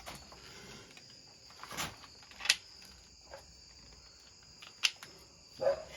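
A few sharp knocks from tools and parts being handled during brake work: two about two seconds in, one near five seconds. A faint steady high-pitched drone runs underneath.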